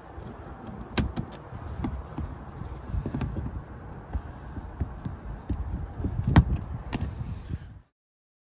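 Flathead screwdriver prying plastic push clips out of a 2020 Hyundai Veloster N's engine undertray: a scatter of sharp clicks and snaps over a low rumble. The sound cuts off abruptly near the end.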